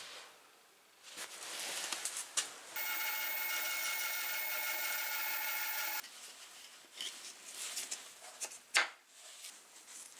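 Abrasive rubbing on a wooden hammer handle, followed by a loud, steady, even sound with a fixed pitch for about three seconds that starts and stops abruptly. Then light handling noises on a wooden table, with one sharp knock near the end.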